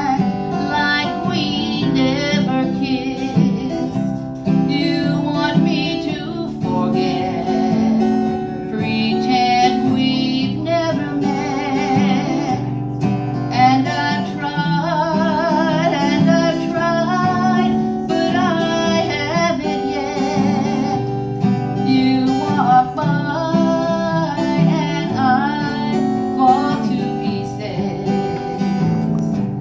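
A woman singing a slow melody with vibrato on her held notes, accompanied by a strummed acoustic guitar.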